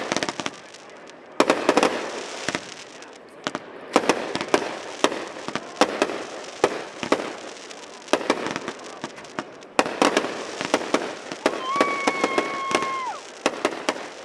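Aerial fireworks bursting in quick succession: many sharp reports with crackling between them. Near the end a steady high tone holds for about a second and a half, then drops away.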